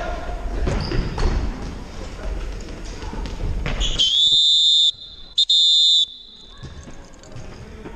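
Referee's whistle blown in a soccer match: a loud, high, steady blast of nearly a second about halfway through, a short chirp, then a second blast of about half a second. Before it, voices of players and spectators and a few thuds from the field.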